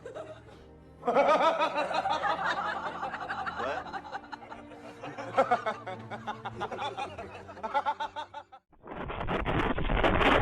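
People snickering and chuckling for several seconds. Near the end the laughter stops and a steady scratchy rustling noise takes over.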